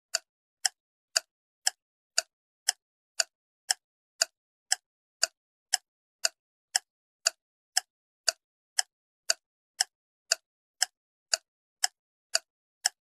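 Countdown timer tick sound effect: short, identical ticks at a steady two a second, with silence between them.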